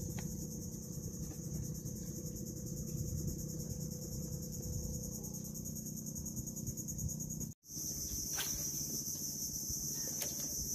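Steady high-pitched drone of insects, with a low steady rumble underneath. The sound drops out for an instant about seven and a half seconds in, after which the insect drone is louder, with a couple of faint clicks near the end.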